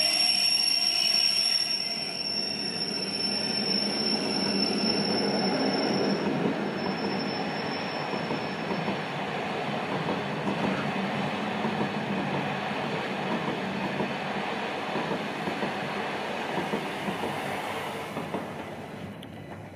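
Rhaetian Railway passenger train, an electric locomotive hauling red coaches, running past on the metre-gauge line: a steady rumble of wheels on rail, with a high steady squeal over the first six seconds. The rumble fades away in the last two seconds as the train leaves.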